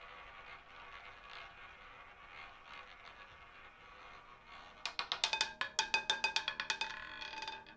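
Roulette ball running around the wheel, then about five seconds in dropping and clattering in a quick run of sharp clicks over the deflectors and pocket frets before coming to rest near the end.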